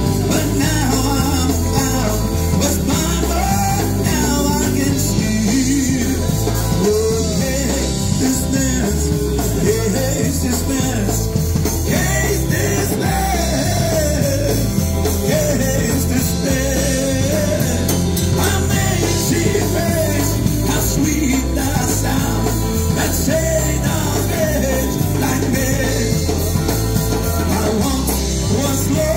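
Live band playing amplified rock-style gospel music with drums and guitar, a man singing lead through the PA speakers.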